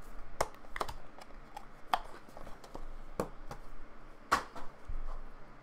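Hands handling trading cards and their plastic packaging: a scattering of short, sharp clicks and rustles, the loudest about four seconds in.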